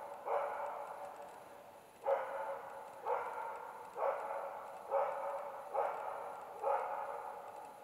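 Karelian bear dog bay-barking at a bear: seven loud barks, the first near the start, then after a short pause a steady run of about one a second, each trailing off in a long echo.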